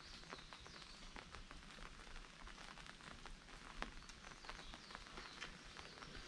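Light rain pattering on an umbrella overhead: many small, irregular taps over a soft hiss.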